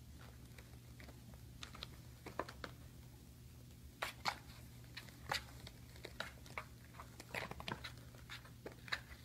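Faint scratching, crinkling and tapping of a kitten's claws on an open cardboard box as it climbs into it and paws around inside, in scattered clicks and rustles that get busier from about four seconds in. A steady low hum runs underneath.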